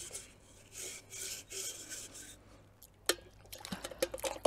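A sand-charged cloth scrubbing the inside of a wheel-thrown black burnished ware (BB2) pottery cooking jar: a few rasping strokes. From about three seconds in come sharp knocks and small water sounds as the jar is handled in a steel bowl of water.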